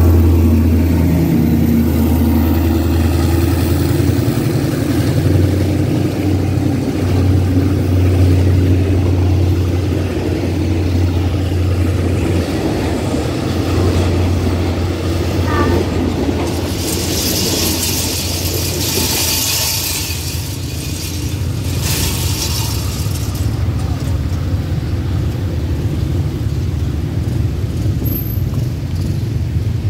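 Diesel locomotive of a passenger train passing close by, its engine running with a strong low hum for the first dozen seconds, then the coaches rumbling past on the rails. A hissing rush comes from the train for several seconds midway, and the sound eases as the train pulls away.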